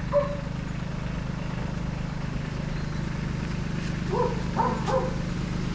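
Kubota tractor's diesel engine idling steadily in the background. A dog barks once near the start and three times in quick succession near the end.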